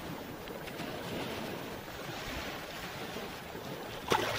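Calm sea, a soft steady wash of small waves. Near the end it cuts abruptly to louder, closer splashing of water in the shallows.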